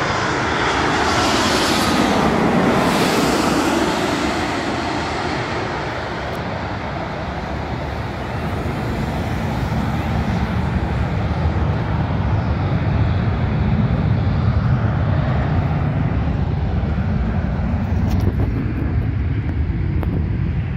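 United jet airliner passing low overhead, its engine whine falling steeply in pitch as it goes by, followed by a long low rumble.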